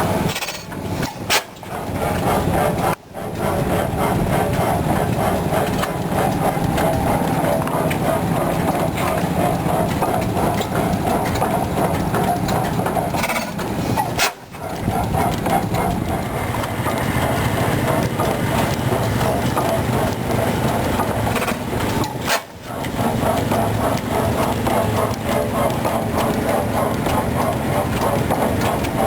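1895 Fairbanks Morse 15 hp hit-and-miss engine with a piston trip igniter, running with a steady rhythmic mechanical clatter, broken briefly a few times.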